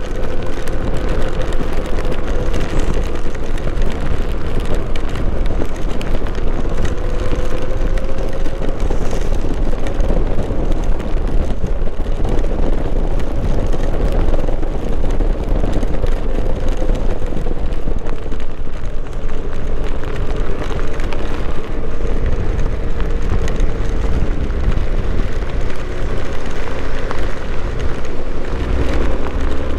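Hero Xpulse 200 motorcycle's single-cylinder engine running under way, its pitch drifting slightly up and down with the throttle, half buried under loud, steady wind rumble and rain noise on the rider's microphone.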